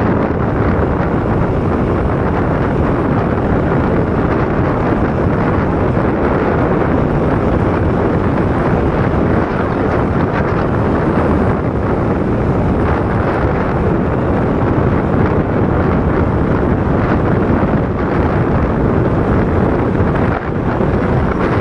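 Steady wind rush buffeting the microphone over the road noise of a vehicle driving at highway speed.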